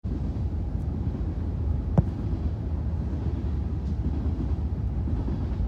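Wind rumbling on the microphone, and about two seconds in a single sharp thump: a foot punting an American football.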